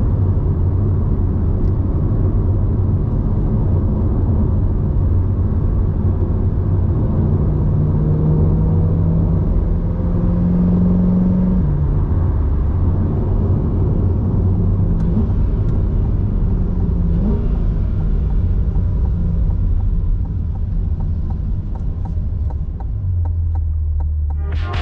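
A 2023 Chevrolet Corvette C8's 6.2-litre V8 running on the move with a steady low drone. Its note climbs a little for a few seconds, then drops suddenly near the halfway point.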